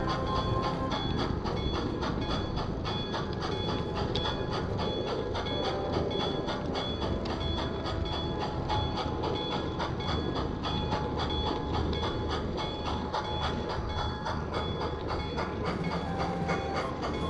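Model steam locomotive and its freight cars running along the track toward a trackside camera, a steady rapid clicking rhythm of wheels and running gear.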